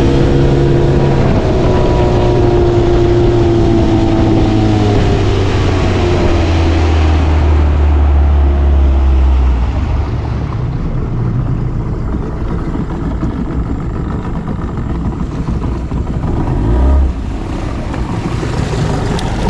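Small boat's outboard motor running under way, its pitch falling over the first few seconds as it is throttled back. About halfway in it drops to a lower, quieter running as the boat slows, with water noise underneath.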